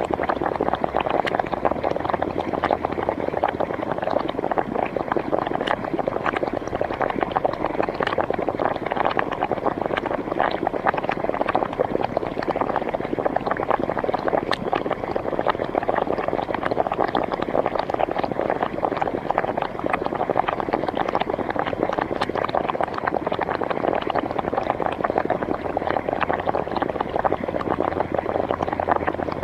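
Hot spring water bubbling and gurgling continuously, a dense, even stream of small pops with no let-up.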